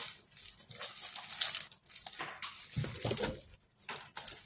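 Plastic courier mailer bag crinkling and rustling in irregular bursts as it is pulled open off a taped cardboard box.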